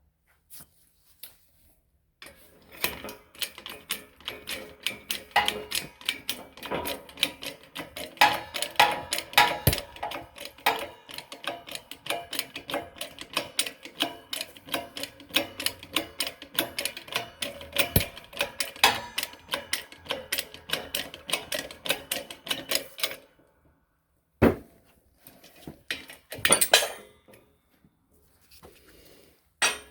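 Rapid, irregular metallic clicking and clinking from a 20-ton hydraulic shop press being worked to press an idler pulley bearing out of its housing, lasting about twenty seconds and then stopping. A couple of louder knocks follow a few seconds later.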